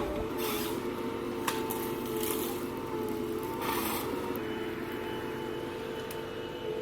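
Forestry harvester machine running steadily, its engine and hydraulics giving a constant drone with a held whine.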